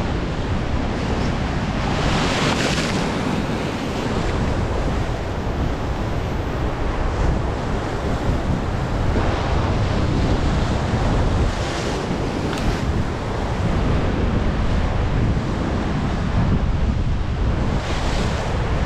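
Heavy North Sea surf washing and breaking on the rocks below, with wind buffeting the microphone. There are a few louder surges, about two seconds in, around twelve seconds and near the end.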